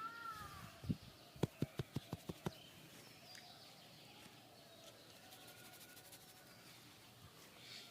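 A single sharp slap, then half a second later a quick even run of about seven hand strikes, some six a second: massage tapping with the hands. A crow caws once at the start, and faint bird chirps sit behind.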